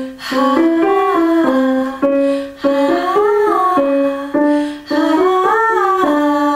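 A woman singing several short melodic phrases in a deliberately airy, unsupported tone, demonstrating the breathy singing that comes from letting too much air escape past the vocal cords.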